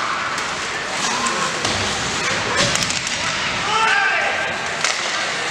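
Ice hockey game rink din: voices calling out over steady noise, with a sharp clatter a little past halfway through.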